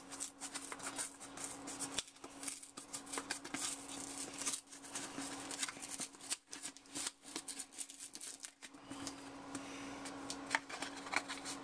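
Tightly sealed product packaging being worked open by hand: a dense, irregular run of crinkling and crackling as the plastic seal is pulled and torn. A faint steady hum sits underneath and drops out for a couple of seconds midway.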